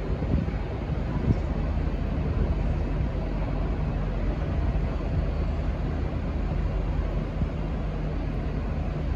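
Diesel engine of V/Line N class diesel-electric locomotive N452 running with a steady low drone.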